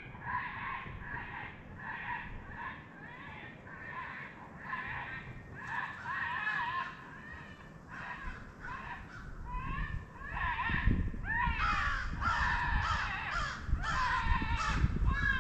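Crows cawing in a series of short harsh calls, several birds overlapping and growing louder and more frequent in the second half, drawn in by an electronic coyote call.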